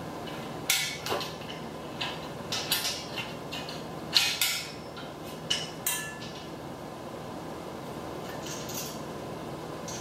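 Steel parts of a hitch-mounted cargo carrier rack knocking and clinking together as they are handled and fitted: a string of sharp metallic clanks over the first six seconds, the loudest about a second in and about four seconds in.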